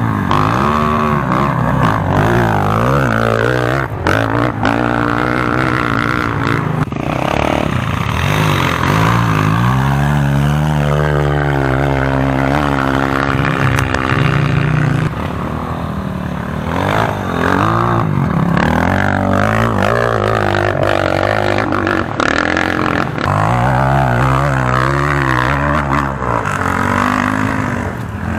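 Enduro dirt bike engines revving hard under load and shifting up through the gears, the pitch climbing and dropping again and again.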